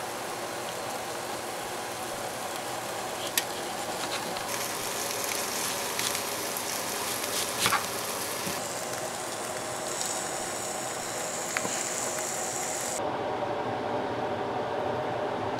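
A few sharp knife taps on a wooden cutting board while a tomato and then an onion are sliced, over a steady hiss and low hum. The background noise shifts abruptly a few times.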